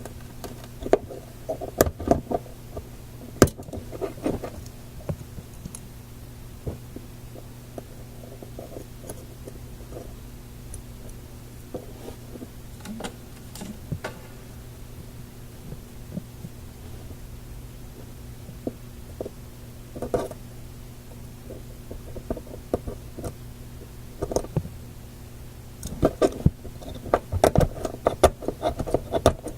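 Irregular light clicks, knocks and short scrapes from hand work on small radio parts, most frequent in the first few seconds and again near the end, over a steady low hum.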